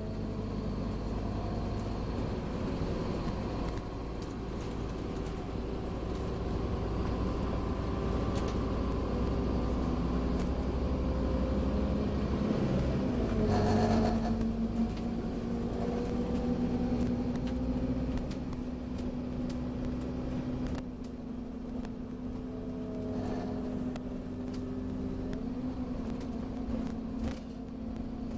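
Scania OmniCity N230UD double-decker bus heard from inside the passenger cabin as it drives: a steady low engine rumble with a transmission hum whose pitch shifts a few times as the bus changes speed. There is a brief rattle about halfway through.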